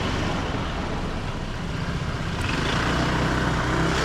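Steady engine hum and road noise of slow, congested city traffic, heard from a scooter among cars and trucks.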